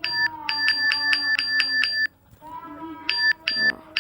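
Smartphone keyboard app's key-press sound effect: short, identical electronic chime-like blips. They come about a second in as a quick run of roughly five or six a second, stop, then return as two blips near the end.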